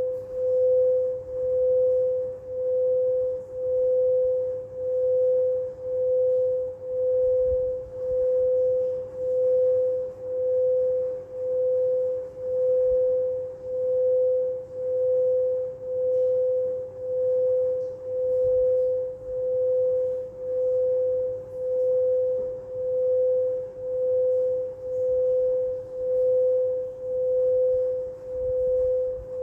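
Singing bowl sounding one sustained mid-pitched tone that swells and fades about once a second, for sound healing.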